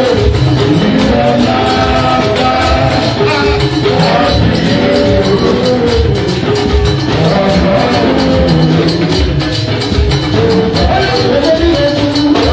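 A man singing a praise song into a microphone, amplified through a PA, over backing music with a steady beat.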